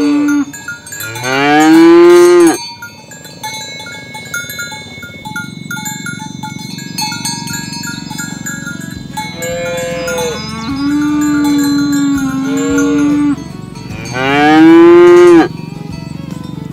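Herd of cattle mooing: one loud moo rising in pitch about a second in, a lower, steadier moo midway, and the loudest rising moo near the end. Small bells clink repeatedly between the calls.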